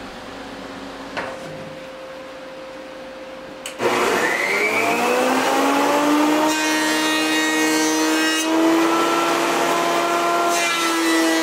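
A handheld electric power tool starts up, its whine rising over about two seconds and then holding steady while it grinds and sands diamond willow wood, with a harsher scratching edge when it bites in. Before it starts there is only a low steady hum and a single click. The tool cuts off abruptly.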